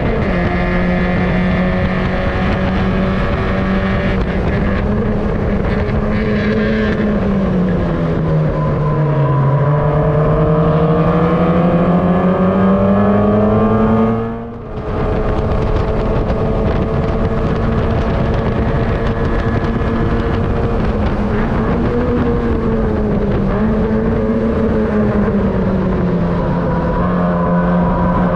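Mazda MX-5 race car's four-cylinder engine at racing speed, heard onboard. Its pitch dips, then climbs steadily for several seconds, cuts out briefly about halfway at an upshift, and comes back lower before rising and dipping a little as the car works through the corners.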